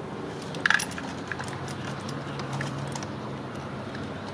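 Metal pliers clicking against a spring hose clamp on a coolant hose: a quick cluster of sharp metallic clicks about two thirds of a second in, then a few lighter clicks, over a faint low steady hum.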